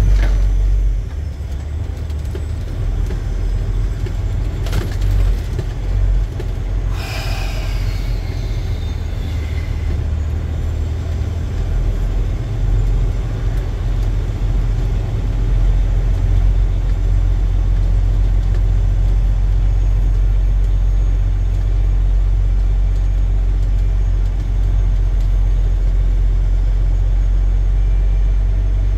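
Semi-truck engine and cab rumble heard from inside the cab while driving, steady and low. A brief high squeal that falls in pitch comes about seven seconds in.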